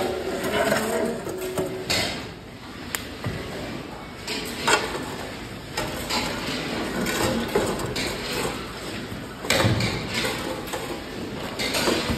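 Irregular knocks and clanks of metal cooking utensils, every second or two, over steady background noise.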